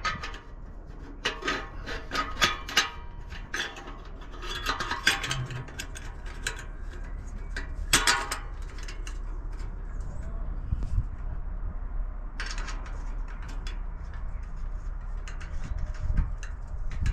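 Bursts of metal clinking and clattering, with a sharp clank about eight seconds in and lighter clinks later, over a steady low hum.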